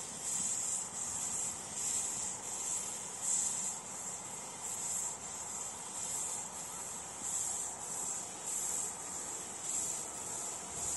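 Insects, likely crickets or grasshoppers, chirping in a steady high-pitched pulse about twice a second.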